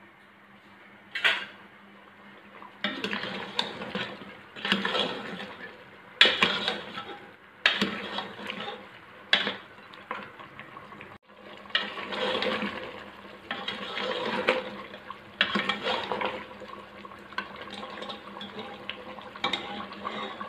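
Metal spoon stirring mutton and broth in an open aluminium pressure cooker: repeated scrapes and clinks against the pot, with some sloshing of liquid.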